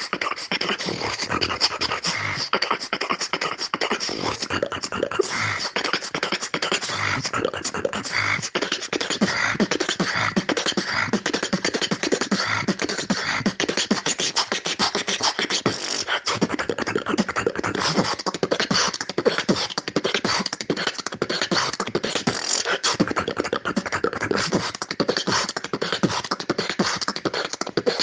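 Solo human beatboxing: a dense, fast, unbroken stream of mouth-made drum sounds.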